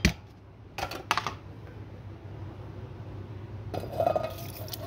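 Stainless-steel mixer-grinder jar being handled, giving a few light clinks and knocks about a second in and again near the end.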